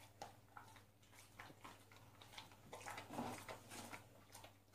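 Faint clicks and smacks of a black Labrador chewing and licking up a calamari ring treat from a tiled floor, with a small cluster of them about three seconds in.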